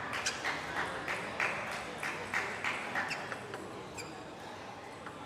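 Table tennis ball tapping and bouncing, a quick irregular run of light clicks in the first three seconds that thins out and fades toward the end.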